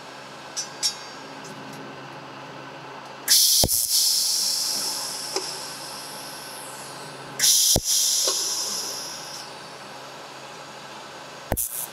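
Hand scribe scratching a line along the edge of a stainless steel ring, twice: each stroke starts abruptly with a high scratching hiss and fades over two to three seconds, with light clicks of the tool around them.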